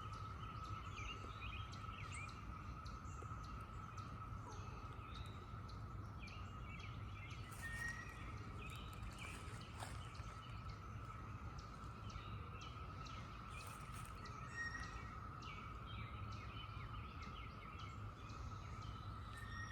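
Chorus of cicadas making one steady, unbroken drone, with a few short bird chirps over it.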